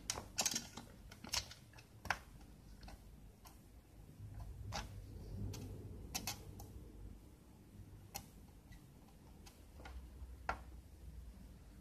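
Faint, irregular light clicks and taps from small tools handling a through-hole circuit board, a dozen or so spread unevenly, over a low background murmur.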